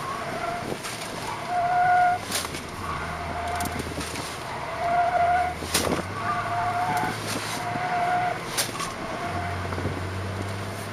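Car's tyres squealing several times as it corners hard, each squeal lasting about half a second to a second, over the engine running, heard from inside the cabin. Three sharp knocks come about 2, 6 and 8½ seconds in.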